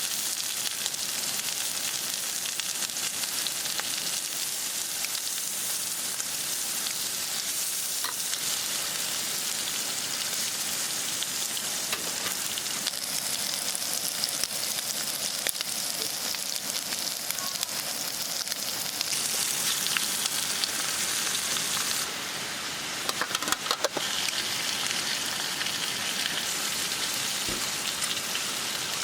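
Pork belly sizzling and crackling as it cooks, a steady hiss, with a short run of clicks about three-quarters of the way through.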